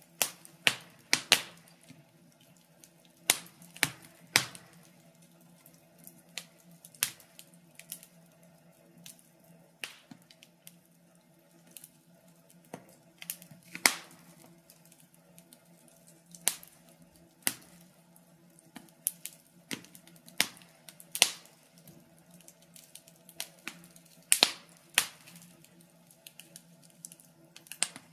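Wood fire crackling: irregular sharp pops and snaps, sometimes two or three in quick succession, over a faint steady hum.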